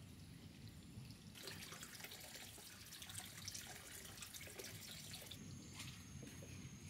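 Water running or being poured, a faint hiss that starts about a second and a half in and stops about four seconds later, followed by a few small clicks and knocks.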